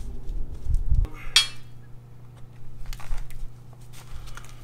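Light metallic clinks and handling noise as a steel lowering spring is set over a shock absorber, with one brief, brighter ringing clink about a second and a half in and a few small clicks later.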